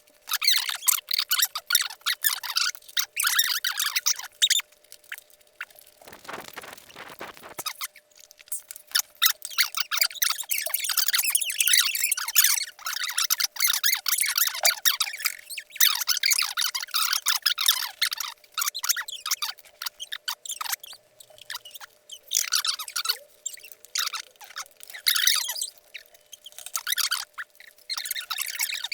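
Close-up eating sounds: rapid wet clicks and squeaks of chewing and mouth noise in clusters with short pauses, with a brief rustle about six seconds in.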